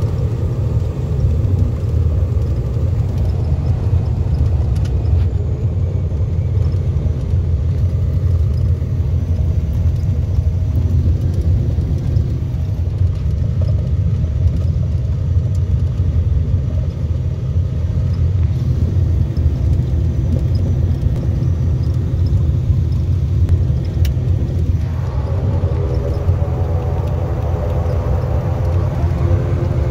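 Steady low engine rumble. About 25 s in, a set of higher steady tones joins it, like a whine rising out of the rumble.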